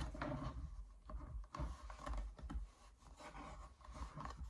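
Faint handling noise: a cotton-spandex sleeve being rubbed and folded on a mannequin arm, with scattered light taps and rustles.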